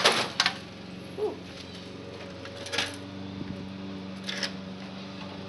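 A clattering crash of a smashed VCR's plastic and metal parts hitting concrete dies away in the first half second. A low steady background hum and a few light knocks of debris being handled follow.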